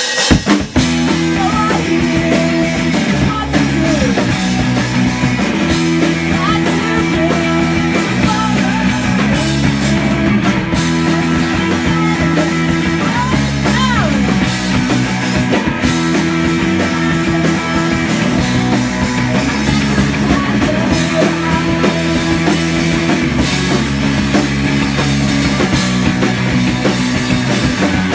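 Live punk rock band playing loud: distorted electric guitar, bass guitar and drum kit, kicking into a song right at the start.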